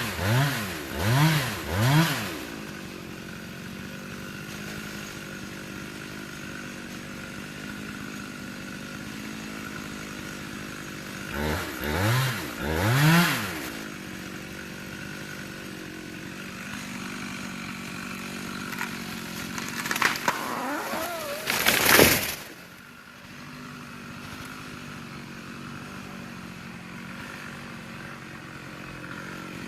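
Chainsaw idling, blipped to short revs: three quick revs near the start, three more about halfway, and a louder full-throttle burst about three-quarters of the way through before it drops back to idle.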